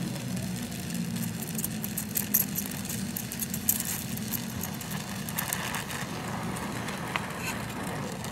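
A steady low engine hum with scattered light clicks and knocks, most of them between about two and four seconds in.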